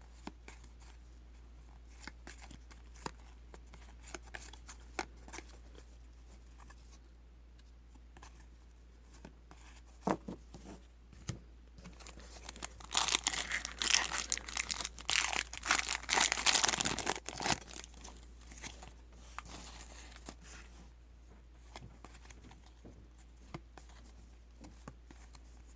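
A trading-card pack wrapper being torn open and crinkled for about five seconds midway, with scattered light taps and rustles of handling before and after.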